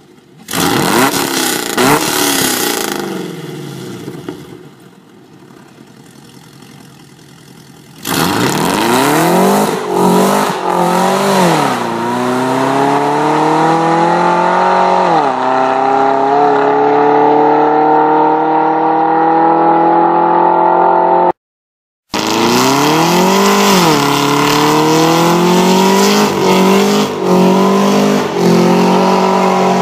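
Chevrolet Camaro SS's 6.2-litre L99 V8 with long-tube headers accelerating hard, the engine note climbing and dropping back at each upshift of the automatic transmission. It opens with a short loud rev that fades. After a quieter stretch, a long full-throttle pull starts about eight seconds in. A sudden cut in the sound leads into a second run with the same climbing-and-dropping pattern.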